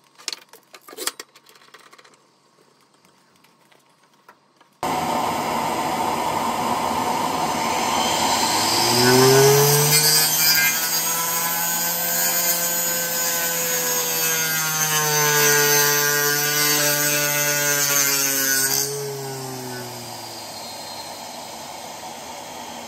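Homemade circular saw, a 795 DC motor driving a 5.5-inch blade, starting abruptly about five seconds in after a few light clicks and running loudly through wood. Its whine rises and falls in pitch as the blade takes and eases off the cut, and grows quieter near the end.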